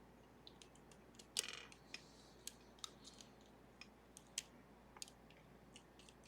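Faint, scattered clicks and ticks of picking tools working the levers of a Sargent & Greenleaf 4440 safety deposit box lever lock, with one louder, short rattle about a second and a half in.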